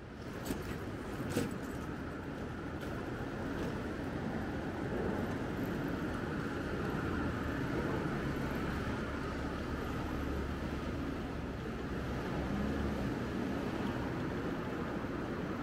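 City street traffic: a steady wash of passing vehicles, with two short clicks early on and a low rumble that swells a few seconds in.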